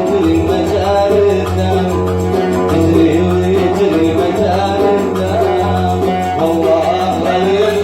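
Oud music: a plucked melody of a Yemeni Sanaani song over a steady low tone.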